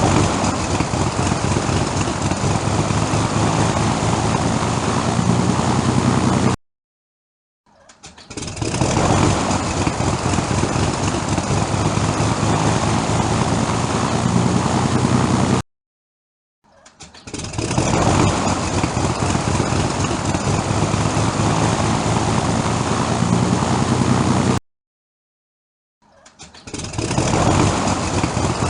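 Propeller aircraft engine starting: it catches and comes up over about a second and a half to a steady run, then cuts off dead to silence. The same start repeats about every nine seconds, three times.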